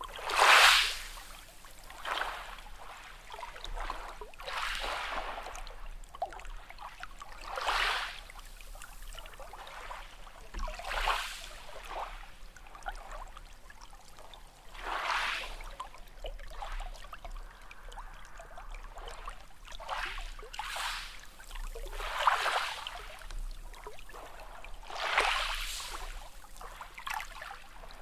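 Small sea waves washing in and draining back, a hissing surge every few seconds, the loudest about half a second in.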